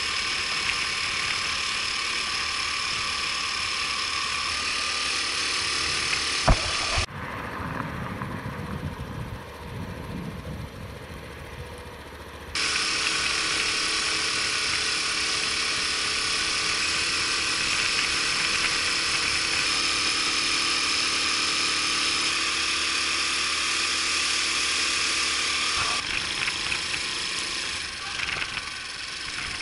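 Honda Super Cub 50's small air-cooled single-cylinder four-stroke engine running at road speed, with wind rushing over the handlebar-mounted camera. About seven seconds in the sound drops and the engine note falls away for several seconds, then the steady riding sound comes back abruptly.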